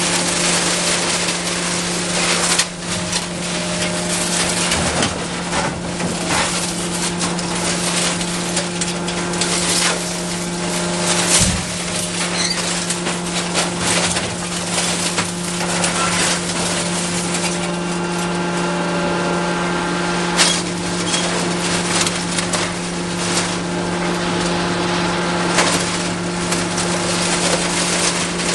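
Komatsu excavator engine running steadily with a low hum, while its Beiyi hydraulic grapple grabs and drops scrap metal, giving a constant clatter of clanks and crashes of metal on metal.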